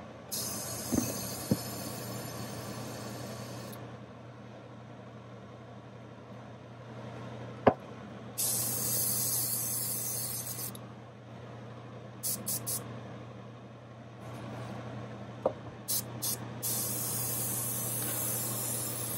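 Airbrush hissing in bursts as its trigger is pulled: a spray of a few seconds, a pause, another spray, a few quick short taps, then a longer spray near the end. A few sharp clicks stand out, the loudest just before the middle spray. The paint booth's exhaust fan hums steadily underneath.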